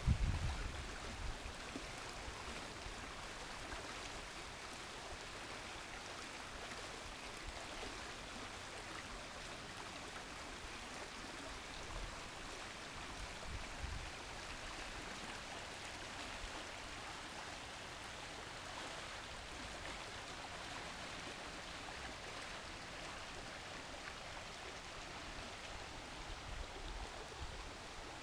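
High, fast-flowing creek rushing steadily over its bed: an even, unbroken rush of water. A few low thumps come right at the start and again about halfway through.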